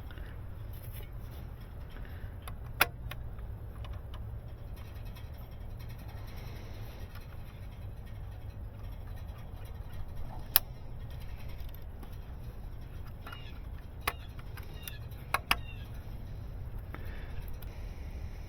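Steady low rumble with a few sharp clicks: one about three seconds in, one about ten seconds in, one at fourteen seconds, and a quick pair near the end.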